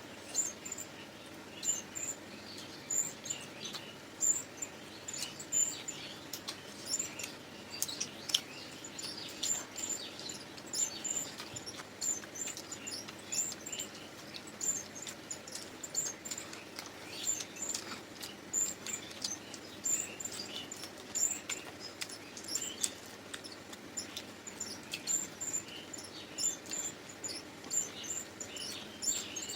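Chewing and lip-smacking of people eating luchi with chicken curry: many short, irregular wet smacks and clicks.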